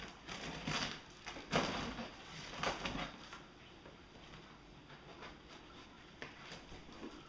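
Hands cutting and peeling packing tape off the top of a cardboard shipping box: a run of scraping and rustling in the first three seconds, then only faint scratches and clicks.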